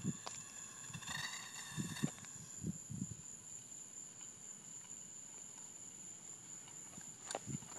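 A steady, high-pitched insect trill, typical of crickets at night, with a few soft low thumps, the loudest near the start, around two to three seconds in, and near the end.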